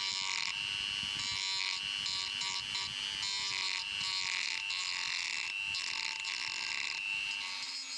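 Handheld rotary tool with a small grinding wheel grinding down a raised boss on a cast metal reel housing: a steady high whine, with rasping grinding noise that comes and goes in short spells as the wheel bites the metal.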